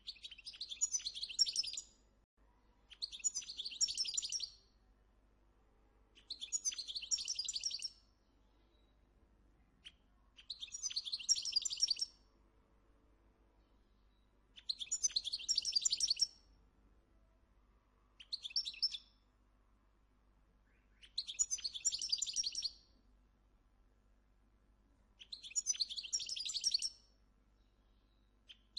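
European goldfinch (Moroccan chardonneret) singing: eight bursts of high, rapid song, each about one and a half to two seconds long and repeated every three to four seconds, with one shorter phrase a little past the middle.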